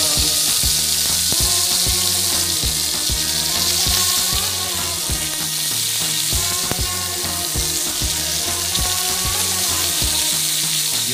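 Chapli kabab patties sizzling steadily in hot oil on a flat pan, over background music with a steady beat.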